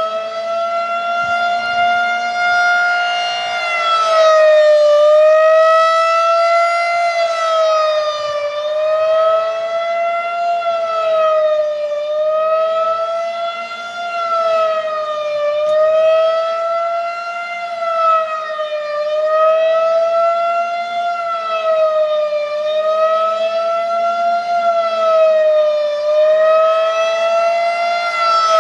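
Federal Signal 2001-130 rotating outdoor warning siren winding up to full pitch, holding a steady tone for a few seconds, then sounding a fast wail: the pitch dips and rises about every two seconds. Its loudness swells and fades as the horn rotates. This is the weekly test signal.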